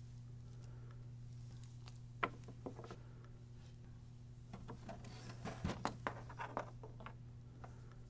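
Faint handling noise of a power cord being uncoiled and handled: a few light clicks and rustles, most of them a little past the middle, over a steady low hum.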